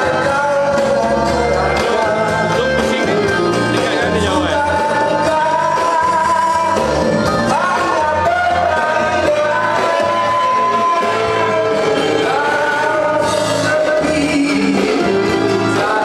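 A man singing into a handheld microphone over backing music, holding one long note a little past the middle.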